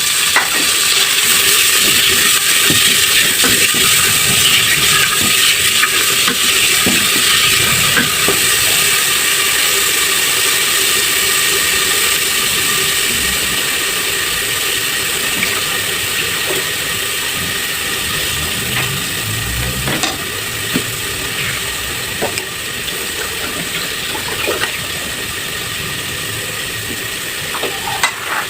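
Food sizzling in hot oil in a pan: a loud, steady sizzle that sets in suddenly as the food goes in and slowly settles down.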